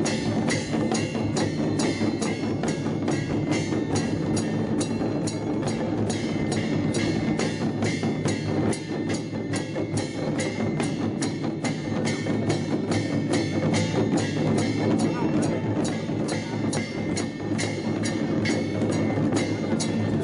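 Children's drum ensemble playing lion-dance gong-and-drum music (醒狮锣鼓): many drums struck together in a steady, driving beat of about three strikes a second, with ringing metal tones over it.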